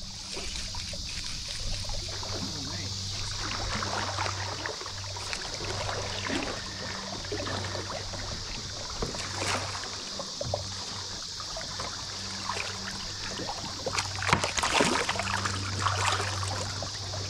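Shallow river water splashing and trickling around a plastic fishing kayak, in scattered short splashes with a louder bout of splashing about fourteen seconds in, over a steady low hum.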